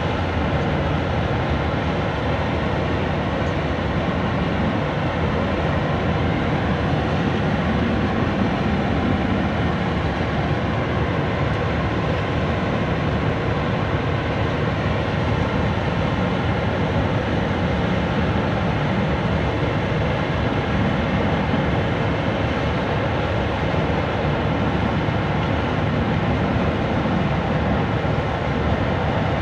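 Steady, loud rumble of running engines and machinery, unbroken throughout, with faint constant hum tones riding on it.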